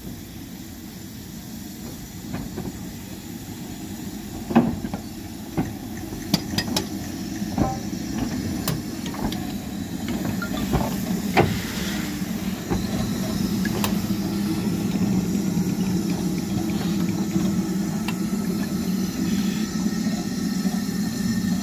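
Ivatt Class 2 2-6-2T steam tank locomotive moving slowly, with a steady hiss of steam that grows louder over the stretch and a few sharp metallic clanks.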